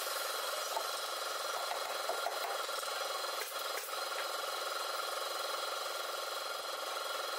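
A steady hum runs throughout, with a few faint metallic clicks of zigzag sofa springs being pulled and seated into their metal clips on the wooden frame, two of them close together in the middle.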